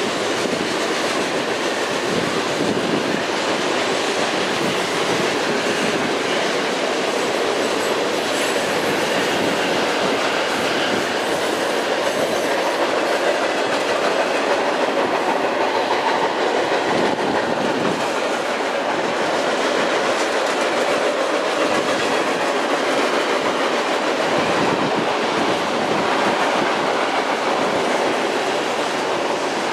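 Freight cars of a long CN train rolling past over a steel girder bridge: a steady, unbroken run of wheel and rail noise with no let-up.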